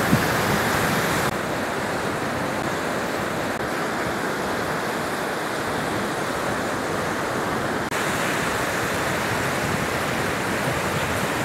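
Sea surf breaking and washing up a sandy beach: a steady rushing noise, which changes tone abruptly about a second in and again about eight seconds in.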